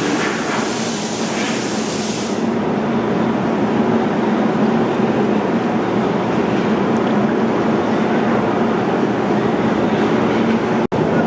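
Steady mechanical noise of workshop machinery running, with a constant low hum. A high hiss under it stops abruptly about two seconds in.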